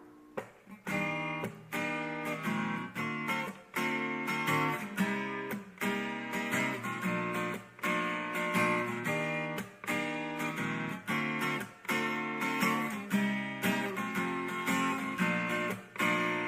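Background music: a plucked guitar playing chords in a steady, even rhythm.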